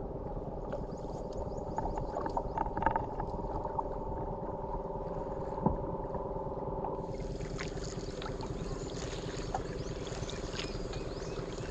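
A small boat's engine running steadily at low speed, a constant hum. A hiss of moving water comes in about seven seconds in, and there is a single sharp knock a little before that.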